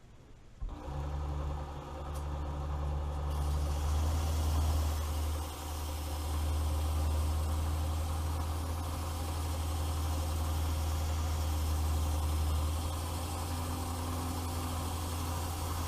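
Work Sharp Ken Onion Edition belt sharpener's variable-speed motor switching on less than a second in and then running steadily with a low hum and a belt hiss that grows brighter about three seconds in.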